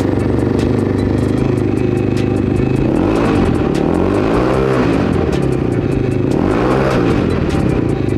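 The carbureted engine of a JHL Z5V enduro motorcycle idles just after starting and is revved twice with the throttle. The first rev comes about three seconds in and the second near seven seconds; each time the pitch rises and then falls back to idle.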